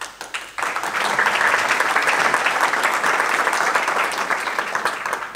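A seated audience applauding. The clapping starts about half a second in, holds steady and dies away near the end.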